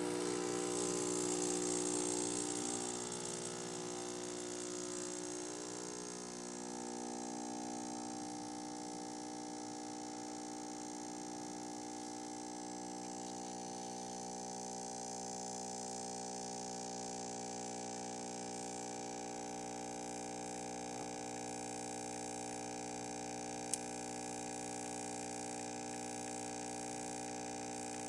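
Home espresso machine's pump running with a steady buzzing hum while pulling a shot, with a brief hiss in the first few seconds and one sharp click late on.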